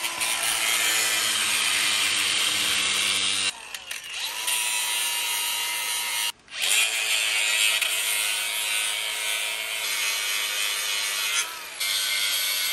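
Cordless angle grinder grinding out cracks in a steel truck frame before they are welded. A steady, high-pitched grinding hiss that stops and spins back up a few times.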